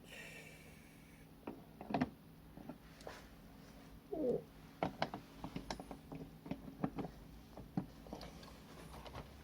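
Light clicks and knocks of a motherboard being set into a PC case and shifted onto its standoffs, over a faint steady hum. A brief falling murmur comes about four seconds in.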